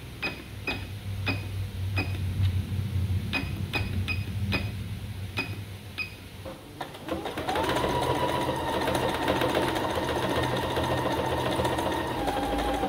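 Singer Confidence computerized sewing machine: about a dozen short beeps as its stitch-selector buttons are pressed to set decorative pattern 57. About seven seconds in, the motor starts and runs steadily for about five seconds, sewing that stitch with a high whine, then stops.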